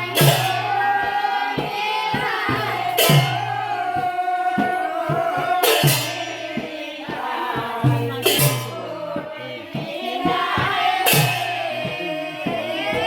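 Group of voices singing a Sylheti dhamail folk song over a steady beat of short claps or strokes, with a sharper accent about every two and a half seconds.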